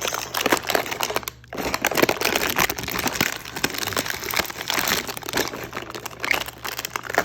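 Small plastic and cardboard toy packaging crinkling and rustling while being handled, with many small crackles and clicks and a brief pause a little over a second in.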